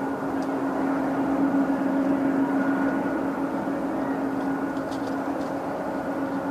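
Boeing 787-8 Dreamliner's jet engines running steadily: a continuous rumble with a steady tone over it.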